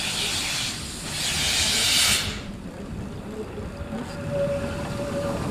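Small narrow-gauge steam tank locomotive passing with its train, steam hissing loudly from around its cylinders. The hiss stops abruptly about two seconds in, leaving the low rumble of the train rolling by.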